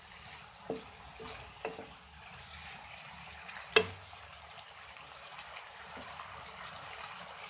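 Chicken and vegetables simmering and sizzling in their own juices in an uncovered pan, with a spatula knocking and scraping against the pan a few times; the loudest knock comes about four seconds in.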